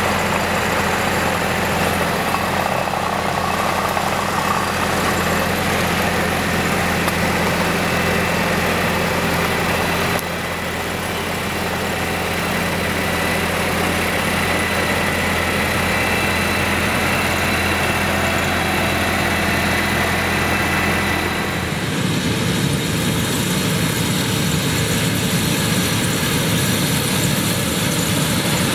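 Fendt tractor's diesel engine running steadily under load while its front and side mowers cut a grass-seed crop. About three quarters of the way through, the sound changes to a Claas combine harvester's engine and threshing drum working through the swaths.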